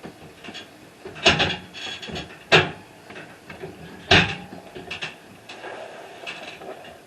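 Several sharp knocks, the three loudest about a second, two and a half and four seconds in, with fainter clicks and rubbing between, like things being handled or bumped on a wooden surface.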